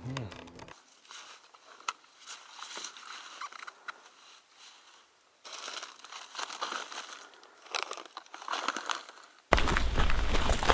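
Plastic bag crinkling as it is handled at a backpack. About a second before the end, loud rustling and crunching of brush underfoot starts suddenly as someone pushes through dense vegetation.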